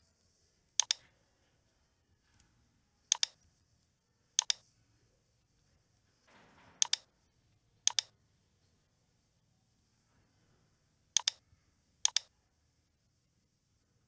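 Computer mouse button clicks: seven sharp clicks spaced one to three seconds apart, each a quick double tick of press and release, with a short soft rustle just before the fourth.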